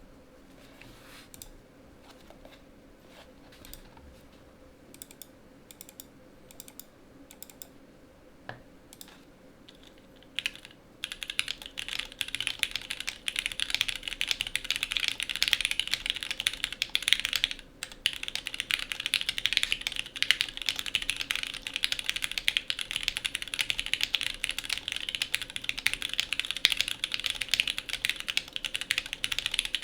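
Mechanical keyboard with lubed Gateron Lion switches on an aluminium plate, under CRP R4 keycaps, being typed on. For about the first ten seconds there are only scattered, fainter key presses. Then fast continuous typing follows, with a brief pause partway through.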